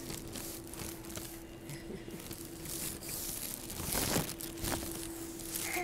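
Rustling and scuffing of a child's padded winter jacket sliding down a steel stair handrail, over a steady low hum. The loudest scrape comes about four seconds in.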